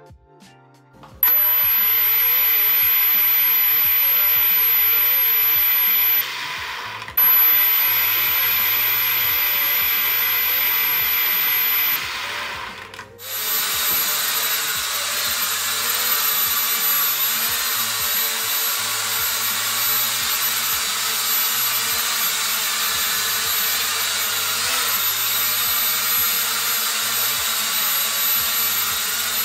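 E88 Pro mini quadcopter's small motors and propellers buzzing steadily as it flies and hovers. The buzz breaks off briefly twice in the first half, then runs on without a break.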